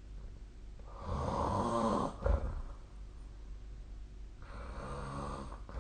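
A sleeping person snoring: two long, rattling snores about three and a half seconds apart, with a short sharp sound just after the first.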